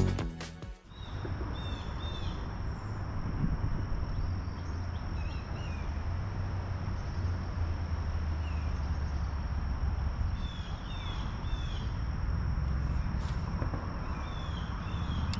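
Birds chirping in short, repeated calls over a steady, high, thin insect drone and a low, steady rumble.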